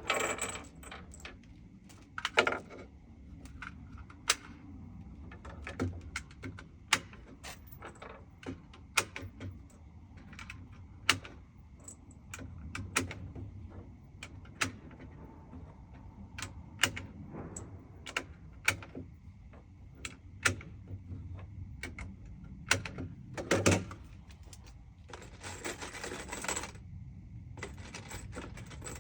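Irregular clicks and light knocks of gear being handled, with a couple of short rustling bursts near the end.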